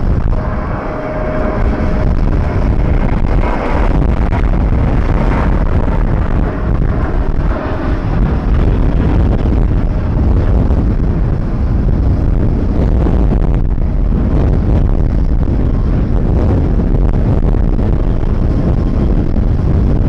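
Jet airliner landing close by: a loud, steady engine rumble, with a faint whine in the first few seconds, and wind on the microphone.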